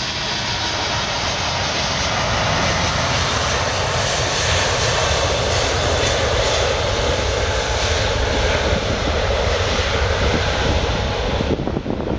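Airbus A380's four Rolls-Royce Trent 900 turbofans at takeoff thrust, a loud, steady jet rumble and hiss as the airliner rolls along the runway on its takeoff run. The high hiss drops away near the end.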